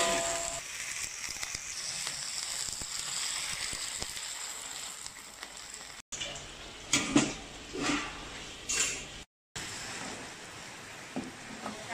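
Python meat and lemongrass sizzling steadily as they stir-fry in a wok. A few louder scrapes and knocks of the spatula come about seven to nine seconds in.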